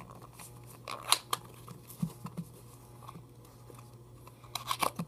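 Scattered plastic clicks and crinkles of a new 2x2 speedcube being unpacked from its box, with a cluster of clicks about a second in and another just before the end.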